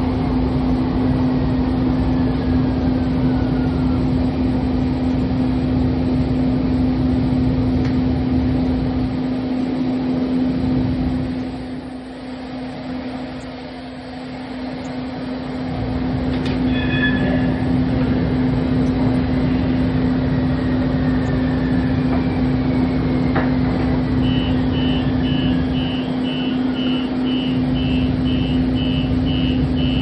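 Siemens S200 light rail vehicle running along the track with a steady hum and rumble, and a faint whine that falls in pitch twice. A short chime sounds just past halfway, and a regular series of high beeps, about two a second, starts a few seconds before the end.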